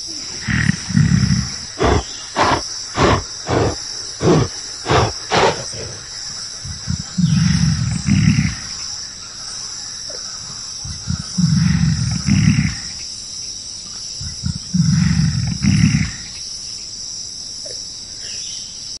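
Gorilla calls: four bouts of deep, rough roaring growls, and about two seconds in a quick run of about seven sharp beats, some two a second. Under them runs a steady high drone of insects.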